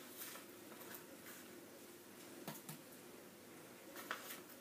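A few faint, scattered clicks and taps of powder being scooped from a small paper packet into a plastic tray.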